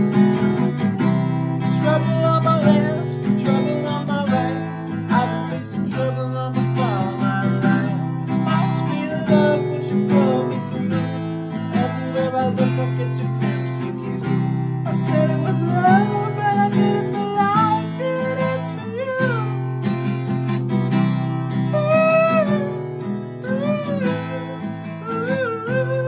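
Acoustic guitar strummed in a steady chord pattern.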